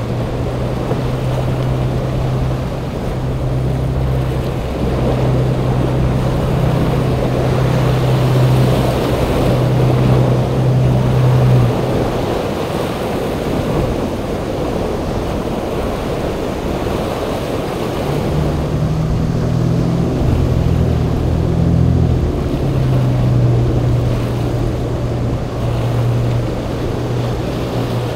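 Viking sportfishing yacht's inboard diesel engines running with a steady low drone over the rush of the hull through waves and spray, with wind on the microphone. The engine drone drops out about twelve seconds in and returns some six seconds later.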